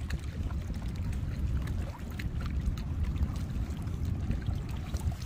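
Low steady rumble of wind on the microphone, with faint scattered splashes and drips of water.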